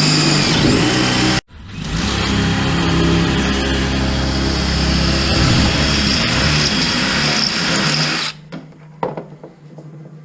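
Electric drill running under load, drilling out the middle bolt hole of a shark tooth sifter rake. It stops for a moment about a second and a half in, runs again, then stops near the end, followed by a few light clicks.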